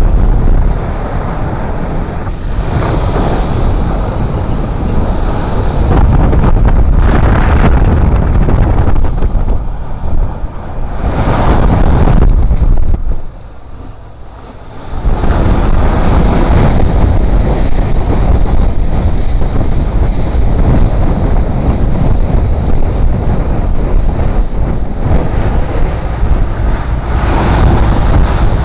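Wind buffeting the microphone over the rush of water and engine noise of a boat running fast, dipping briefly about halfway through.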